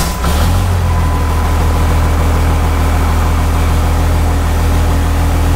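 A 2001 Dodge Ram's 5.9-litre Cummins 24-valve straight-six turbo-diesel, freshly fitted with an ATS Aurora 3000 turbocharger, idling steadily just after a cold start. It settles into idle in the first moment, and it is a little bit loud because the exhaust beyond the downpipe is not yet installed.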